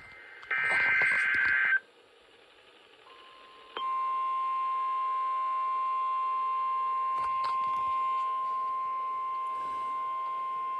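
NOAA Weather Radio Emergency Alert System tones. A buzzy two-pitch SAME digital data burst ends about two seconds in. After a short gap, the steady single-pitch 1050 Hz warning alarm tone starts about four seconds in and holds, announcing a new weather bulletin.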